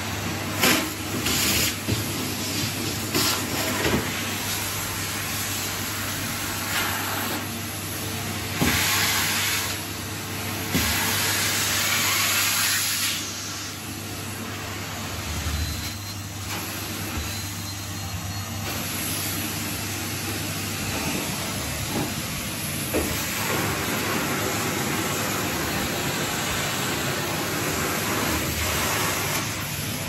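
Numatic Henry cylinder vacuum cleaner running, a steady motor hum under a suction hiss that swells and falls as the nozzle is worked over the floor, loudest about nine to thirteen seconds in. Occasional light knocks sound over it.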